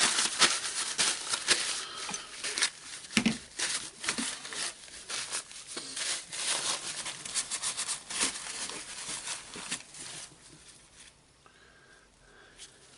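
Hands handling and sorting the small parts of a disassembled cordless jigsaw: a rapid, irregular run of clicks, scrapes and rustles. It dies down to faint handling noise after about ten seconds.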